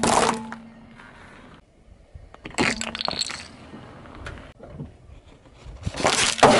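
A car tyre rolling over and crushing small objects on asphalt: three bursts of crunching and cracking, one at the start, one about two and a half seconds in, and the loudest near the end.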